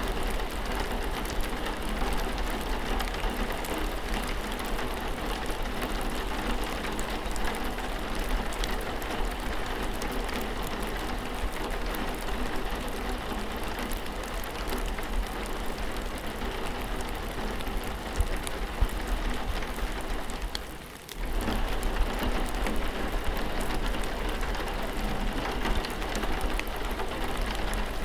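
Steady rain falling, with individual drops ticking throughout; the sound dips briefly about three quarters of the way through.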